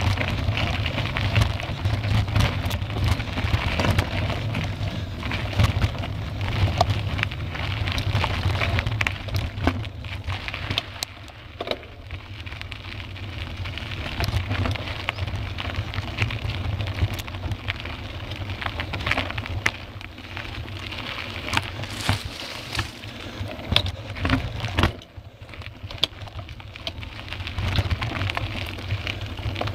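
Mountain bike descending a rough dirt singletrail, heard through a compact camera clamped to the handlebar: continuous rattling and clatter of the bike and camera mount over the trail surface, with tyre noise and a low rumble of vibration and wind. It eases briefly late on.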